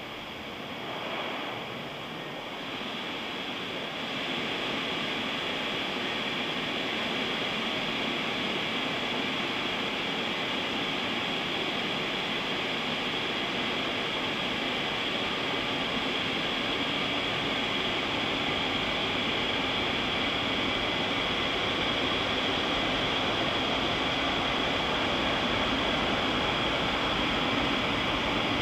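Automatic car wash gantry working over the car, heard from inside the cabin: a steady rushing of water spray and machinery that grows louder about four seconds in and then holds.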